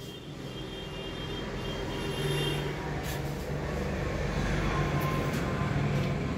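Belt-driven masala (spice) grinding mill running on its electric motor: a steady mechanical hum and rush that grows louder over the first two or three seconds, then holds.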